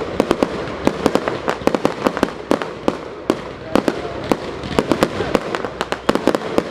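Fireworks going off, many sharp bangs and pops several times a second in irregular clusters.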